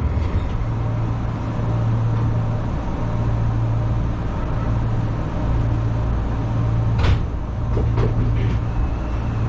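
Steady low hum of an electric train standing at a platform, heard from the driver's cab, with a single sharp knock about seven seconds in.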